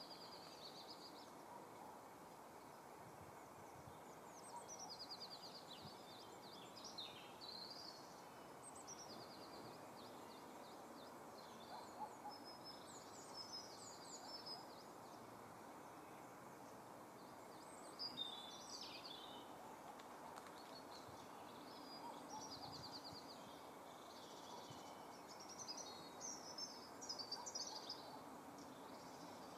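Small birds singing in short, high, repeated phrases, some with rapid trills, every few seconds over faint steady background noise.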